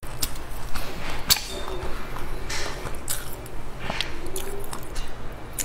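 Close-up chewing of a stuffed bun, with irregular sharp, wet mouth clicks and smacks.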